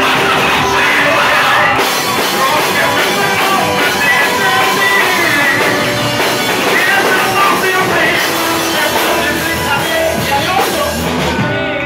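Loud live church worship music: a band with drums plays while voices sing along and the congregation claps.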